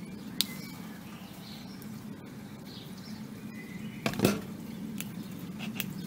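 Handling noise: light rustling and a few sharp clicks, the loudest about four seconds in, over a steady low hum.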